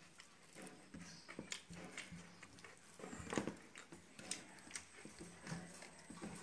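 Eating by hand from steel plates: chewing and lip smacks mixed with fingers scraping and mixing rice on the metal, heard as scattered small clicks and smacks, with one louder one about three seconds in.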